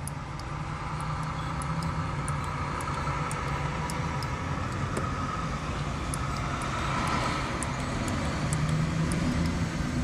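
Steady rumble of a car engine and road traffic, with faint short ticks as the keypad buttons of a TurboLock electronic door knob are pressed.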